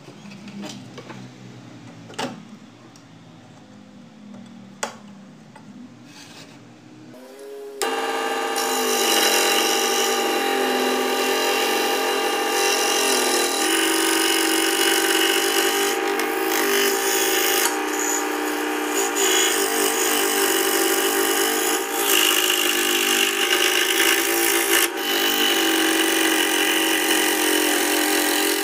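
A few sharp clicks of handling at the saw, then about eight seconds in a scroll saw starts and runs steadily, its fine blade cutting the inner openings of a wooden board through a glued paper pattern.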